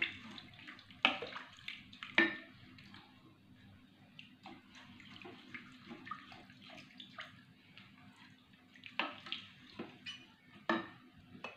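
Wooden spatula stirring thin liquid in a rice cooker's inner pot: the liquid sloshes and the spatula knocks against the pot wall now and then, with louder knocks about a second and two seconds in and several near the end.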